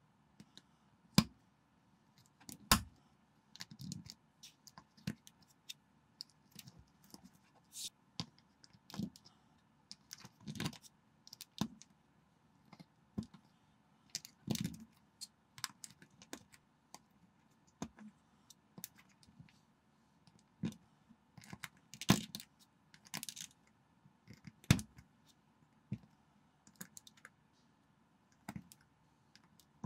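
Small plastic LEGO-compatible bricks and plates clicking and snapping as they are picked up and pressed onto a round base plate by hand: irregular sharp clicks and taps, with a few louder snaps about a second in, near three seconds and about two-thirds of the way through.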